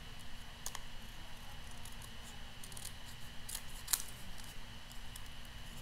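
Scissors snipping through green cardstock, cutting out stamped leaf shapes: a string of short, irregular snips, the sharpest about four seconds in.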